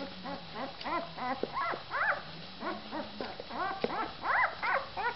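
Newborn Inuit Dog puppy squeaking and whimpering in a quick run of short, high, rising-and-falling cries while it roots for its mother's teat.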